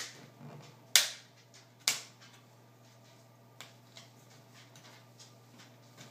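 Plastic snap-fit clips of a netbook's screen bezel popping loose as it is pried off by fingernails: three sharp snaps about a second apart, then fainter clicks.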